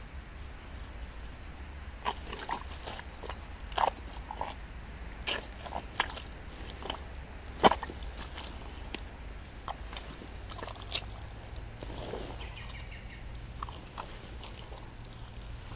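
Rubber boots squelching and sucking in soft bog mud as the feet shift and sink: a string of irregular short wet squelches, the loudest about halfway through.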